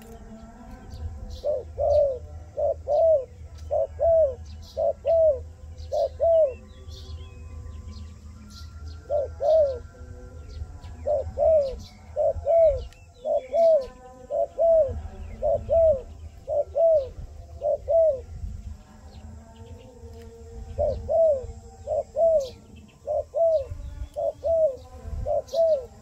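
Doves cooing in three bouts of quick, evenly repeated coos, each note rising and then falling in pitch. The first bout begins about two seconds in, the second runs through the middle and the third comes near the end.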